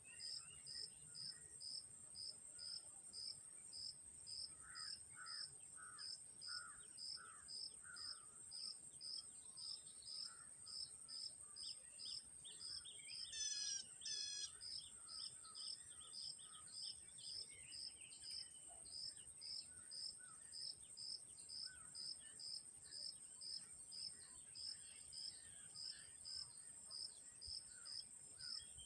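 Faint chorus of insects: a steady high shrill with a pulsing chirp repeating a little under twice a second. Birds call over it: a run of about six notes around five seconds in, and a quick burst of chirps about halfway.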